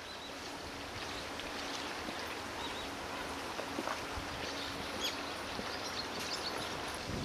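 Steady outdoor background noise with scattered short, high bird chirps.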